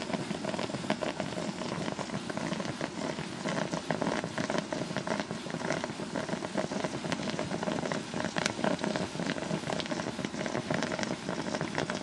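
Distilled water boiling hard inside the EKitty, a small electric boiler run at about 780–800 watts. It makes a steady, dense crackle of bubbling, full of fine ticks.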